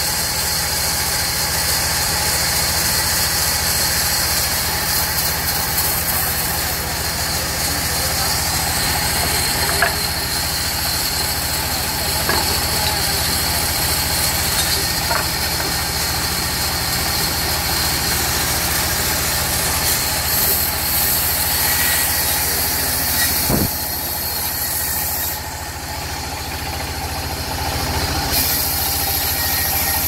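Sawmill band saw running steadily while its blade cuts through a mahogany log, with a constant low machine hum under the sawing noise and a few faint knocks.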